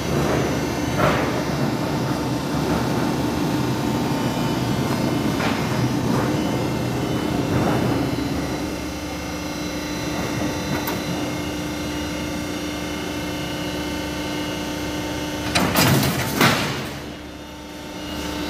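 Rib-type roofing-sheet roll forming machine running with a steady mechanical hum and whine as it forms metal sheet. Near the end come two loud, noisy clatters, then the running briefly drops away.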